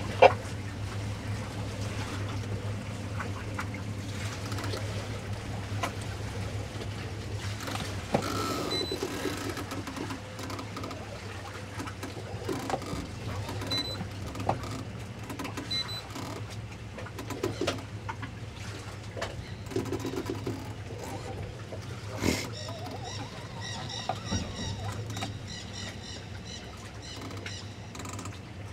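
Boat engine running at slow idle, a low steady hum, with scattered light knocks, the loudest about two-thirds of the way in, and a few short high chirps.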